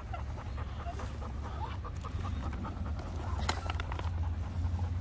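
Dog panting, with the light rustles and clicks of a folding camping chair's metal frame and fabric being collapsed, and one sharp click about three and a half seconds in.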